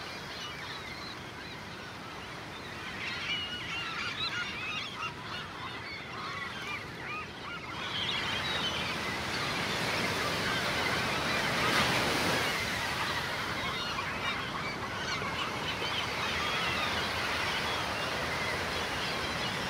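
A flock of gulls calling, many short cries overlapping, over the wash of surf that swells louder about halfway through, like a wave breaking.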